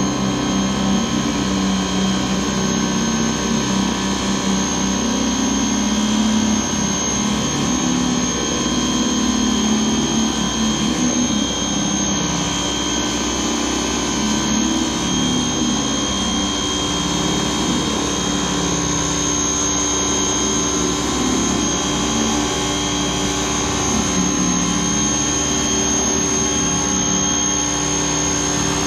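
Electric pressure washer running steadily with a high motor whine, driving a surface cleaner whose water jets hiss and spatter against the deck boards.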